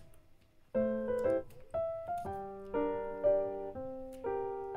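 Background piano music: a light melody of separate notes and chords, which breaks off briefly at the start and comes back in under a second later.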